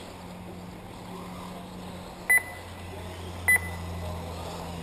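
Two short, loud electronic beeps about a second apart, a little over two seconds in, over a steady low hum. They fit the race lap-timing system signalling an RC buggy's transponder crossing the timing loop.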